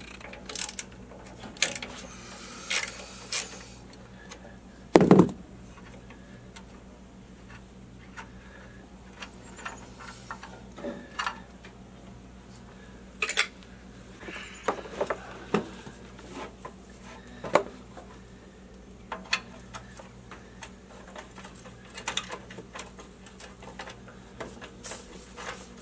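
Scattered clinks and knocks of hand tools and metal engine parts being handled, with one louder thump about five seconds in.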